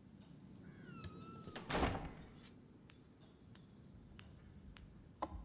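A door squeaking briefly on its hinge, followed by a short louder rush of noise, then a few faint ticks.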